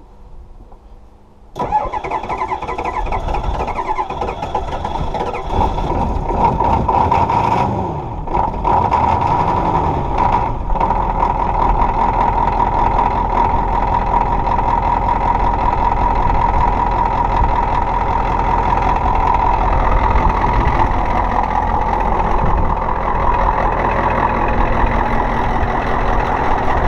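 Cold start of a bullnose Ford pickup's 6.9 L IDI V8 diesel: the starter cranks it about a second and a half in, the engine catches after a few seconds and settles into a steady idle.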